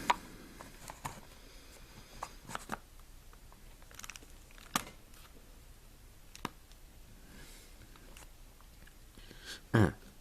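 Plastic Lego pieces clicking and tapping as they are handled, a sharp click every second or two, with a louder brief sound near the end.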